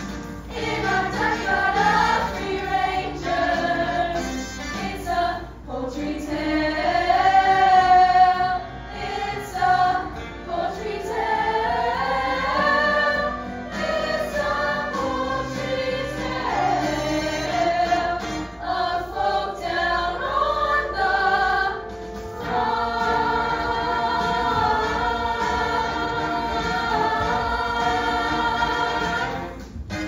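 Young cast singing together as a chorus over musical accompaniment, the melody moving line by line, then holding one long chord over the last several seconds.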